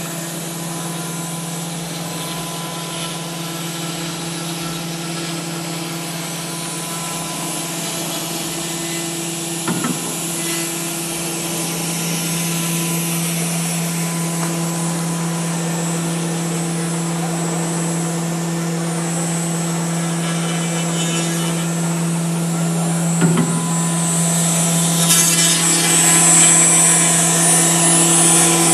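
4-axis CNC router running, its spindle carving a block of white foam: a steady hum with a faint high whine over it, and the cutting noise growing louder toward the end.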